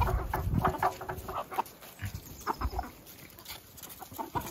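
Chickens clucking in short, scattered calls.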